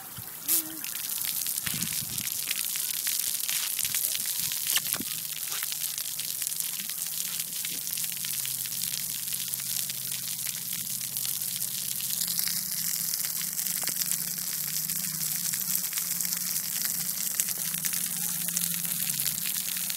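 Splash-pad water jets spraying up from ground nozzles and spattering on wet concrete: a steady hiss with crackling patter that gets louder about half a second in.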